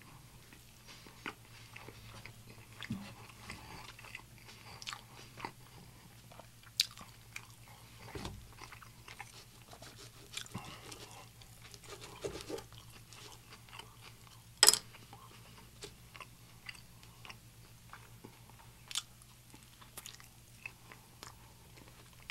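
Close-miked chewing and mouth sounds, with scattered soft clicks and crackles as fingers tear apart a soft rolled wrap. About two-thirds of the way through, one sharp click stands out as the loudest sound. A steady low hum runs underneath.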